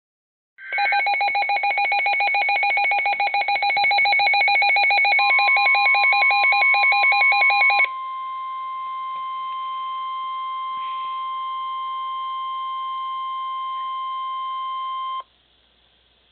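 Midland WR-100 weather radio sounding a warning alert: rapid electronic beeping, joined about five seconds in by the steady 1050 Hz NOAA Weather Radio warning alarm tone. The beeping stops near the eight-second mark and the tone carries on alone until it cuts off suddenly about fifteen seconds in, just before the warning message is read.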